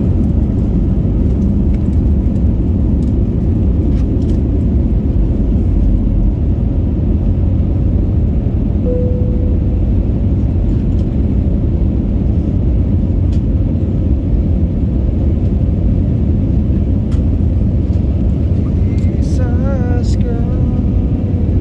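Jet airliner's engines at takeoff power, heard inside the cabin as a loud, steady low rumble through the takeoff roll, liftoff and initial climb.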